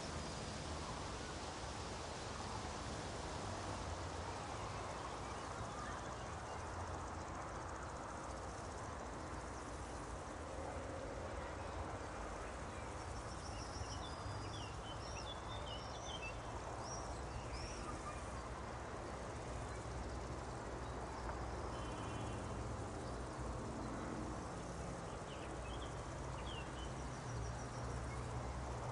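Meadow nature ambience: a steady hiss of wind through grass, with small birds chirping now and then, mostly in the middle and again near the end.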